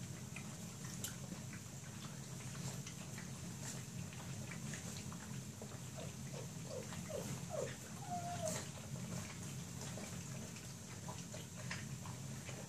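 A litter of whippet puppies eating together from one dish: many small clicks of feeding, with one puppy giving a run of about five short squeaks a little after halfway and a longer whine just after.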